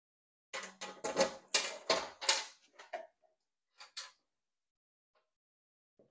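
Clicks and rattles of the Verkada AC42 controller's metal cabinet as its key lock is worked and the hinged front door is swung open. A quick run of sharp clicks in the first half, then two brief ones about four seconds in.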